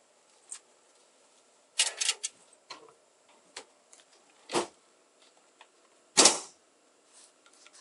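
Rummaging through a pickup truck's cab: scattered clicks and rustles of things being moved about, with two louder knocks, about four and a half and six seconds in, the second the louder.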